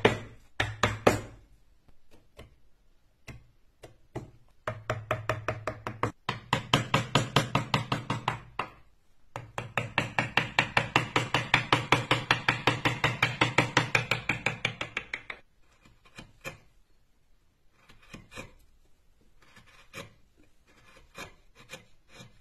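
Hand carving in wood with gouges: two long runs of rapid, even tapping strokes, about six a second, with sharper single clicks and cuts before, between and after.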